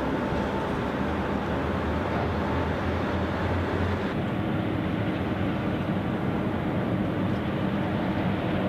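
Steady low rumble of ship machinery and engines from a passing aircraft carrier and its tugboats, with faint steady hums. The sound changes abruptly about four seconds in, losing its higher part.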